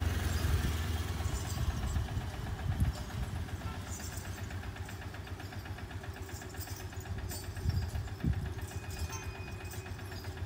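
A small petrol engine idling close by, a steady low chug that is loudest at the start and eases off over the first couple of seconds.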